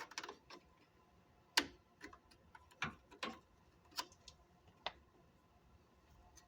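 Scattered light clicks and knocks of the Jeep Cherokee's headlight bracket and its parts being pushed and shifted to bring them into alignment, about half a dozen in all, the sharpest about a second and a half in.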